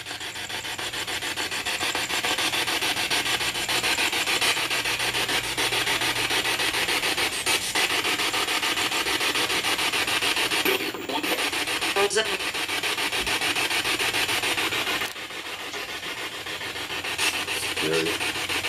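Spirit box, a radio rapidly sweeping through stations, hissing and crackling with static through a small external speaker. The static is steady and choppy, with a few brief breaks as the sweep jumps.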